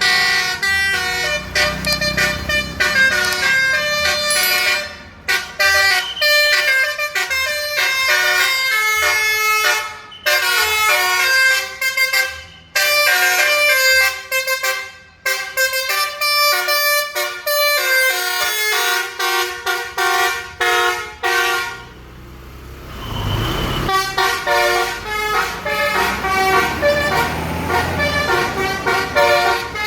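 A bus's Basuri telolet musical air horn playing quick runs of bright, changing notes in phrases with short pauses between them. About two-thirds through, the notes stop for a moment under a rising rush of noise, then start again.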